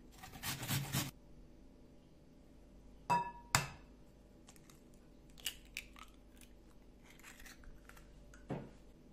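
An onion rubbed on a metal box grater in about a second of quick rasping strokes. Then an egg is knocked twice against the rim of a glass bowl, the first knock ringing briefly, followed by a few faint clicks and another light knock near the end.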